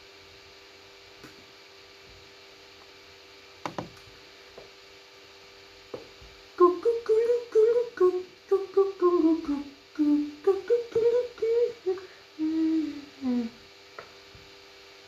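A person humming a short tune, a quick run of notes rising and falling, starting about six and a half seconds in and stopping near the end. A faint steady tone sits underneath.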